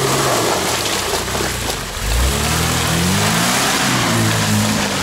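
Lada Niva's engine held at high revs, its pitch rising and falling as it pushes through deep mud ruts, with a sudden low surge about two seconds in, over the steady noise of tyres churning wet mud.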